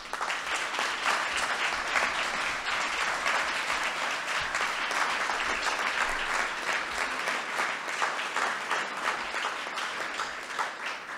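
Audience applauding: many people clapping, starting at once after the speech and tapering off near the end.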